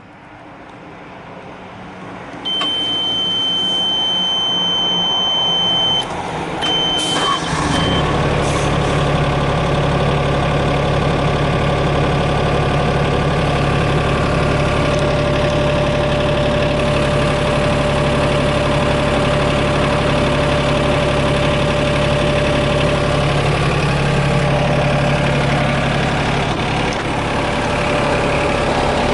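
Yanmar VIO20-1 mini excavator being started: a high-pitched warning buzzer sounds steadily for a few seconds, then gives a few short beeps, and about seven seconds in the three-cylinder diesel engine starts and settles into a steady idle.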